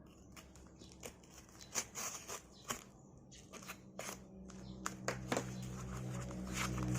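Plastic shrink-wrap being torn and peeled off a sealed album box: irregular crinkles, crackles and sharp clicks of plastic and cardboard being handled. A low hum comes up in the second half.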